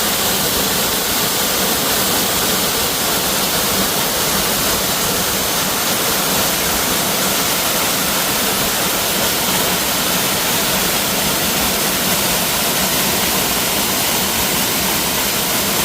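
Waterfall crashing down close by: a loud, steady rush of falling water.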